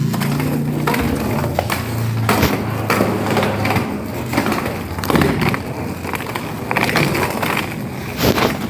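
Roller-skate wheels rolling over a hard surface, giving a continuous rough rumble broken by frequent clicks and knocks as the skates strike and push off. A low steady hum runs under the rolling for the first couple of seconds.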